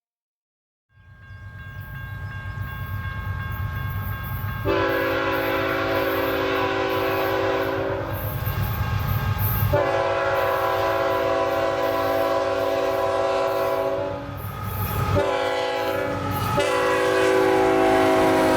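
Diesel locomotive approaching with a rising engine and rail rumble, its horn sounding a chord in the grade-crossing pattern: two long blasts, a short one, and a final long blast that drops slightly in pitch as the train passes.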